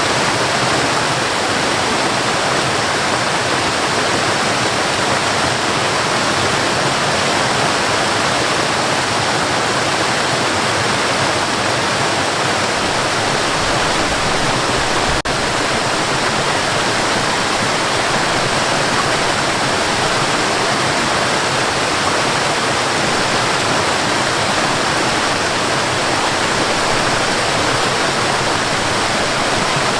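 Cascading water falling and splashing in a steady, unbroken rush.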